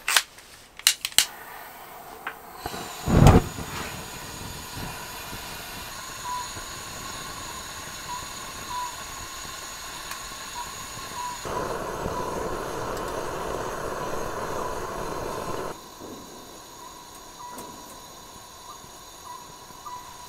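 Portable propane fire pit with lava rocks being lit: a few sharp igniter clicks, then a loud short puff as the gas catches about three seconds in, followed by the steady hiss of the burning gas. The hiss grows louder for about four seconds past the middle, then drops back.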